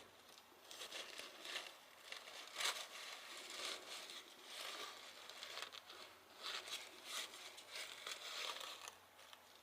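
Faint, scattered rustles and light clicks from hands handling the parts of a disassembled angle grinder, checking the armature shaft for end play.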